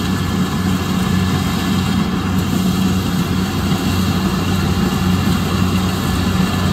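Kubota DC-70 rice combine harvester running steadily while cutting through a rice paddy: a constant diesel engine drone with a strong low hum.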